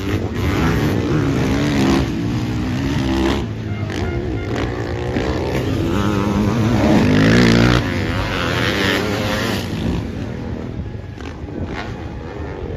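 Sidecar motocross outfits' engines revving hard on the race track, the pitch repeatedly climbing and dropping as they accelerate and shift; loudest about seven to eight seconds in, then easing off.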